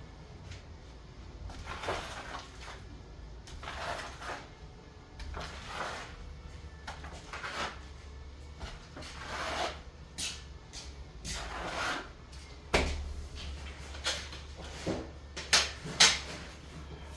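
Repeated scraping or rubbing strokes about every two seconds, then several sharp knocks and clacks in the second half, the loudest near the end.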